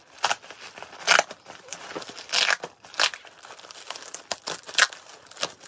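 Thin white plastic bag wrapping crinkling and tearing as hands pull a parcel open, in irregular bursts of rustling and ripping.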